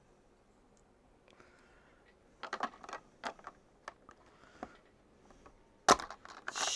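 Small plastic building-brick parts clicking and tapping as they are handled and pressed together, a scatter of sharp clicks starting a couple of seconds in, with one louder snap near the end.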